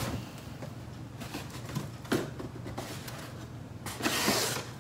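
Cardboard shipping box being handled: a few brief scrapes and knocks, then a longer, louder rustling scrape about four seconds in as the box is lifted and tipped up.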